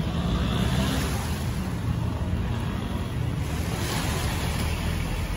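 Steady seaside ambience: wind and sea water with a low rumble underneath.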